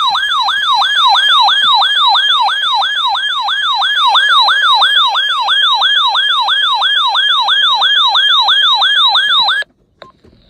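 Electronic alert siren sounding continuously, its pitch sweeping rapidly up and down about three times a second. It cuts off abruptly near the end.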